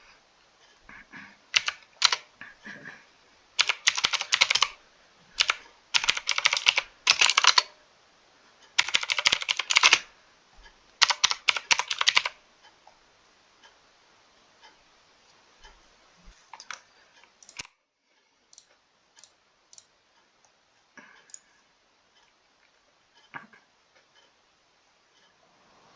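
Typing on a mechanical keyboard: rapid bursts of key clicks for about twelve seconds, then only a few scattered single key presses.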